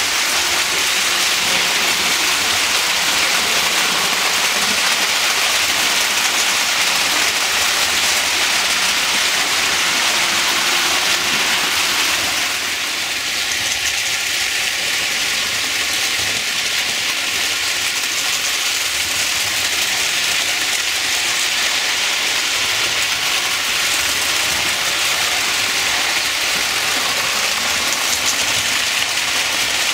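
Several Lionel toy trains running around a three-rail tinplate layout: a steady rushing whir of electric motors and wheels on metal track. About twelve seconds in, the sound drops slightly and a faint steady hum comes in.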